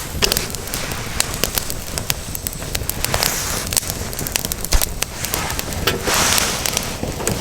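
Wood fire crackling with many sharp pops, with two swells of hissing about three seconds in and about six seconds in.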